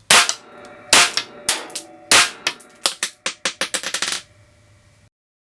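EKOL Volga blank pistol firing three 9mm P.A.K. blank rounds, about a second apart, each a loud sharp crack with a ringing tail. A run of quieter sharp cracks and clicks follows the last shot for about two seconds.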